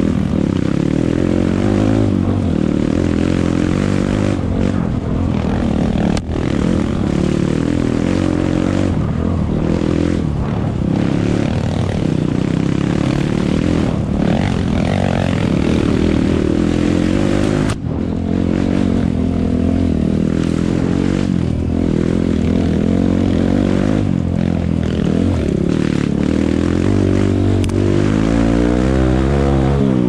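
Small single-cylinder four-stroke trail motorcycle engine running under load on a rough uphill dirt track, the revs rising and falling with the throttle, with rattling and scraping from the bike over rocks. There are two brief dips in the sound, about six seconds in and past the middle, and the revs climb near the end.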